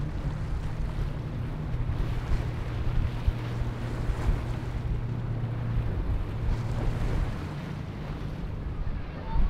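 Steady low drone of a watercraft engine running, over splashing water and wind buffeting the microphone.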